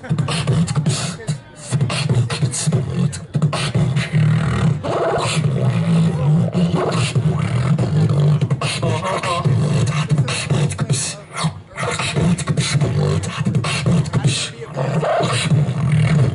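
Human beatboxing, amplified through a handheld microphone and PA speakers: a continuous stream of quick mouth-made percussive hits over a steady low bass tone.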